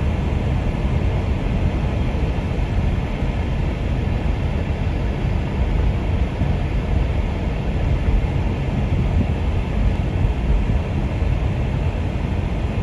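Steady low rumble of a moving car, road and wind noise with no change in pace.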